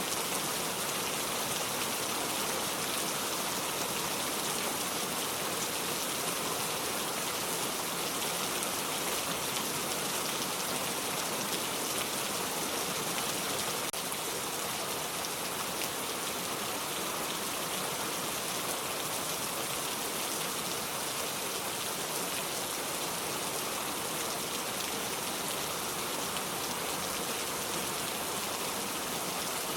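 Steady rain falling, an even dense hiss of many drops on a surface, unchanging throughout.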